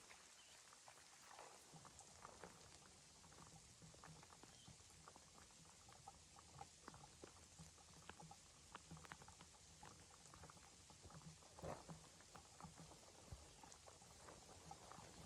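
Near silence with faint, irregular ticks and crackles throughout, a few slightly louder about three quarters of the way through.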